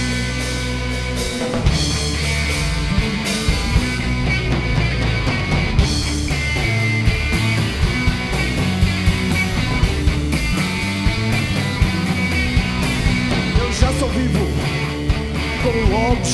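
Punk rock band playing live: electric guitars, bass and drums in an instrumental passage with a steady drum beat.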